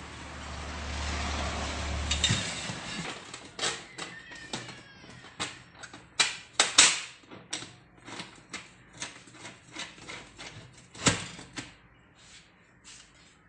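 Steel trays and the door of an electric double-deck pizza oven being handled, giving irregular sharp metallic knocks and clicks with a brief squeak partway through. A steady rushing noise with a low hum runs first and cuts off after about two seconds.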